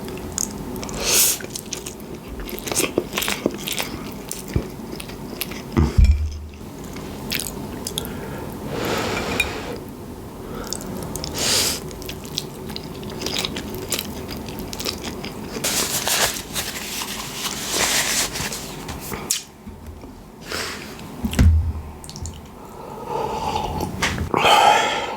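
Close-miked chewing of spaghetti bolognese: wet mouth clicks and smacks, with two dull thumps, one about six seconds in and one near the end.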